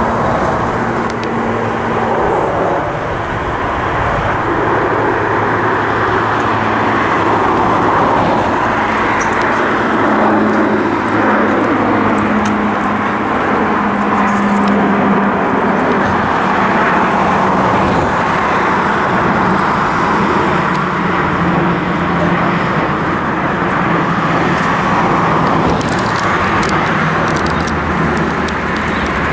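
Continuous road traffic noise from passing cars. Engine hum and tyre noise run steadily, and the hum shifts in pitch from time to time.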